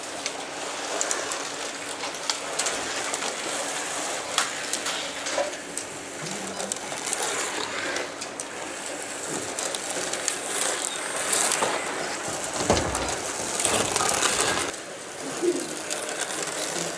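Electric slot cars racing on a plastic slot-car track: small motors whirring and guide braids clattering in the rails, with many small clicks and rising and falling swells as cars pass close by.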